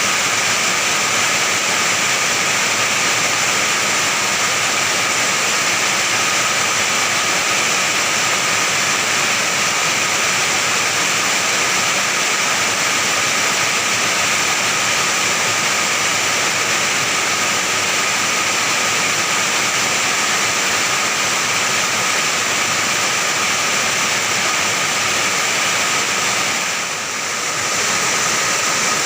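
Heavy rain pouring steadily onto an iron roof, a dense unbroken hiss, easing slightly for a moment near the end.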